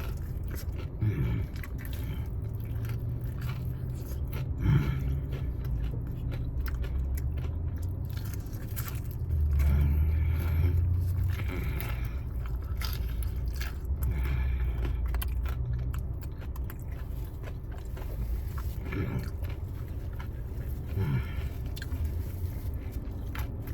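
A person biting and chewing fried chicken wings (Popeyes signature hot wings) close to the microphone: many small irregular clicks and crunches over a low rumble.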